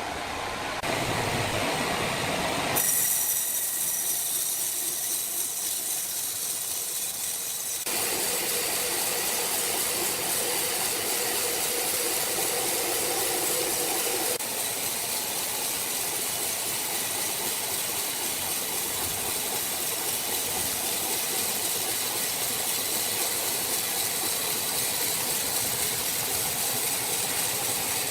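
Sawmill machinery running with a steady, hissing mechanical noise. The sound changes abruptly several times, notably about 3 and 8 seconds in.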